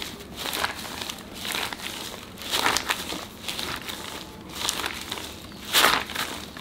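Plastic sheet crinkling and rustling under hands rolling a long log of golgappa dough back and forth, in irregular swishes. The loudest swish comes near the end.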